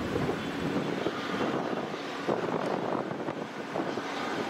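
Airliner jet engines running, a steady noise with faint whining tones through it.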